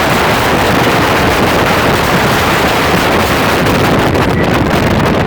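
Loud, steady wind noise on the microphone over the rush of water and engines as a speedboat runs at speed.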